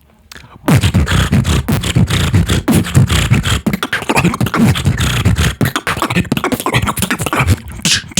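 Beatboxing: a fast run of mouth percussion, clicks and snare-like hits over deep bass tones with repeated falling bass sweeps, starting after a short pause about half a second in.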